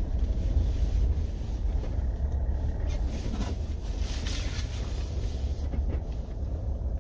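Mahindra Thar 4x4 driving slowly over a snow- and ice-covered mountain road, a steady low rumble of engine and tyres.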